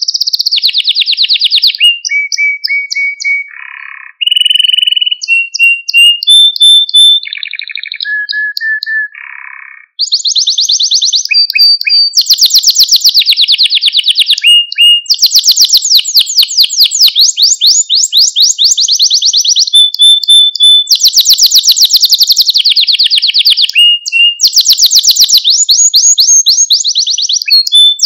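Male domestic canary singing a long, loud song of rapid trills alternating with short held whistled notes, with a brief break about ten seconds in.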